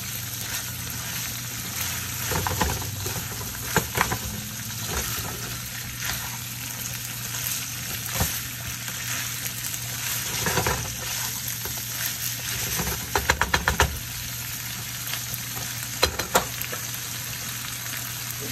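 Ackee and saltfish frying in oil with a steady sizzle, stirred with a spoon that scrapes and knocks against the pan now and then. There is a quick run of about six taps past the middle and two more near the end.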